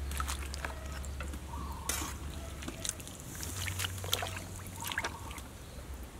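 Hot blanched napa cabbage leaves dropped and pushed down with metal tongs into a plastic basin of cold water: light splashes and drips, with a few sharp clicks, over a low steady hum.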